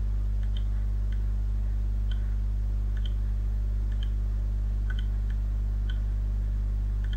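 Faint computer mouse clicks, roughly one or two a second, over a steady low hum.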